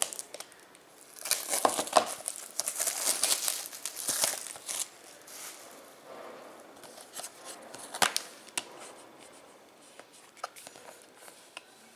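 Plastic shrink wrap being torn and crinkled off a Blu-ray case for a few seconds, then a sharp snap about 8 s in as the plastic case is opened, followed by a few light clicks of handling.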